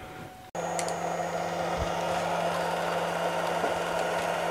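An 86 mm closed-loop stepper motor spinning its bare shaft on its driver, a steady hum with a few fixed tones and a hiss over it, starting suddenly about half a second in. It is the first run after the motor's encoder line driver was patched with microsoldered wires.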